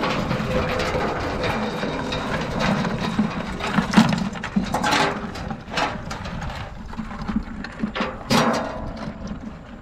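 Metal crab tongs clattering and knocking against a bucket as blue crabs are handled into it: a run of sharp clicks and knocks, the loudest about four seconds in and again near the end.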